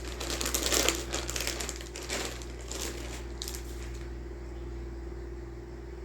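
Plastic parts bag crinkling and rustling as it is handled and opened, in a run of bursts over the first second and a few more up to about three and a half seconds in, then only a steady low hum.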